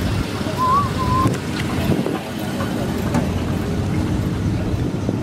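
Steady low rumble of car engines idling, with wind buffeting the microphone. A brief whistle-like chirp comes about a second in.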